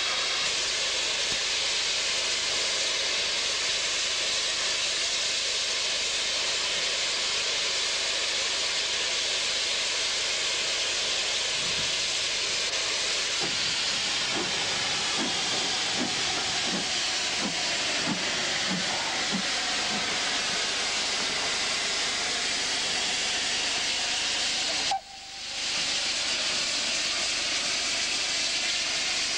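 Steam locomotive blowing off a steady, loud hiss of steam. About halfway through comes a run of soft exhaust beats, about two a second, with white steam jetting from the open cylinder drain cocks, as the engine moves slowly. Near the end the sound drops out for a moment.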